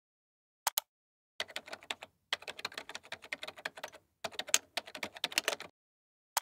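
Typing on a computer keyboard: a couple of keystrokes, then three quick runs of clatter with short pauses between them, and two more clicks near the end.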